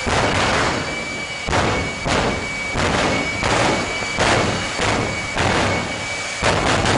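Jet engine of a jet-powered semi truck running with a steady high turbine whine, surging in a rhythmic pulsing rush about twice a second as the afterburner flame is pulsed.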